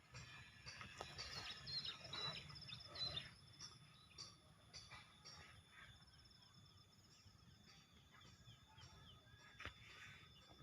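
Faint birds chirping and trilling over quiet outdoor ambience, busiest in the first few seconds.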